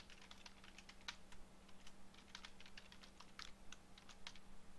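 Faint typing on a computer keyboard: irregular key clicks, with a steady low hum underneath.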